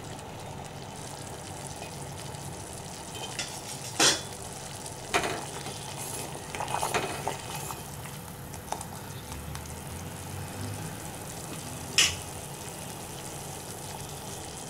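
Sugar syrup simmering in a stainless steel pot with a steady bubbling hiss, its sugar fully dissolved, while a steel spoon stirs it. The spoon clinks sharply against the pot about four seconds in and again near the end, with some scraping in between.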